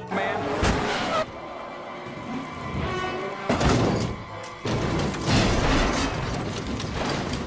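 Soundtrack music mixed with sudden crashing and thudding sound effects. It turns loud and busy from about three and a half seconds in.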